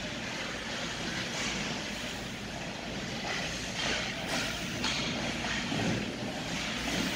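Ice hockey rink ambience during play: a steady hiss and hum with skates scraping the ice and a few short, sharp knocks scattered through.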